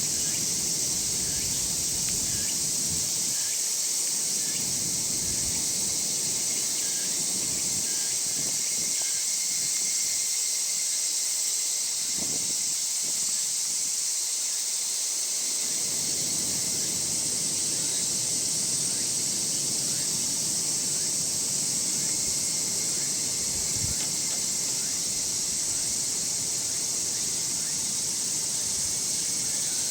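A steady, high-pitched chorus of singing insects that does not break, with a fainter, pulsing insect call lower in pitch beneath it.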